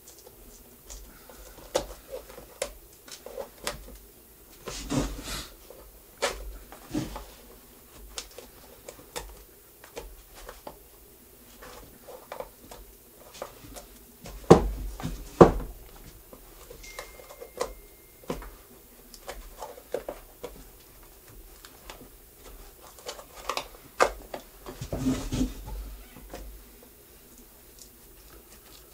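Old cork filler being scraped and picked out of the bottom of a Goodyear-welted shoe: scattered small clicks and scrapes, with two sharp knocks close together about halfway through.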